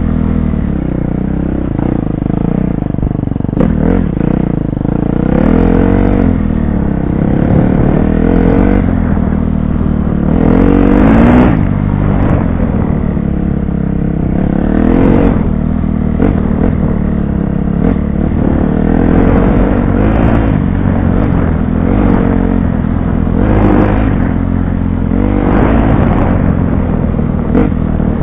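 Off-road motorcycle engine heard from the rider's helmet camera, revving up and dropping back with the throttle every second or two, with stronger surges about eleven and fifteen seconds in.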